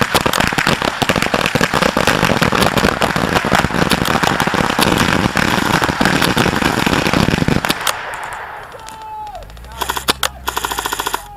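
Airsoft guns firing: a dense rattle of rapid shots for about eight seconds, then after a short lull a close burst of rapid full-auto fire near the end.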